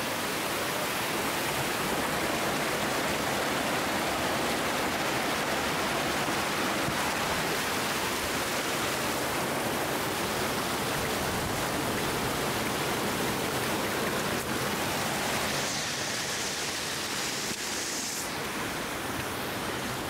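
A waterfall pouring and splashing over rocks close by: a steady rush of water noise that turns slightly hissier for a couple of seconds near the end.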